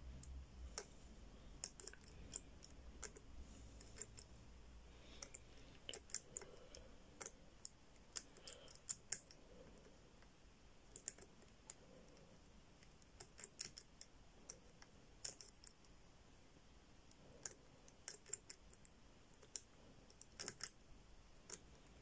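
Faint, irregular clicks of the number wheels on a Zhege four-wheel combination padlock as they are stepped through their digits by thumb. The wheels are being turned to feel which digits run loose and which seize up, to decode the lost combination.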